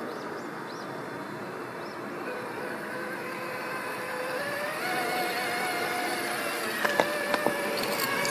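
Electric drive motor and gearbox of an Axial SCX6 1/6-scale RC rock crawler whining under load as it climbs rock, the whine stepping up in pitch and growing louder. A few sharp clicks come about seven seconds in.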